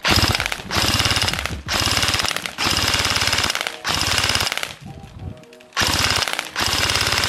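G&G GKM electric-blowback airsoft AEG (an AKM replica) firing full-auto in about seven short bursts of roughly a second each, with a pause of about a second near two-thirds of the way through. Each burst is the rapid rattle of the version 3 gearbox cycling at its rated 600 to 700 rounds a minute.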